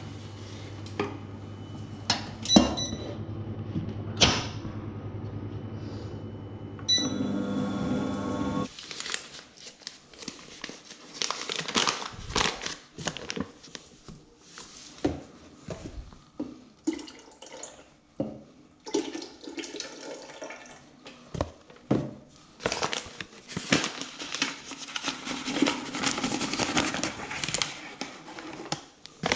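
A steady machine hum with a few clicks, cutting off abruptly about nine seconds in, then irregular knocks, clatter and rustling of things being handled.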